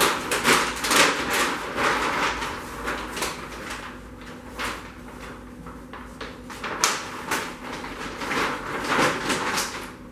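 Irregular rustling, scraping and knocking of sheet material being handled, over a steady low machine hum. The handling noise stops abruptly near the end.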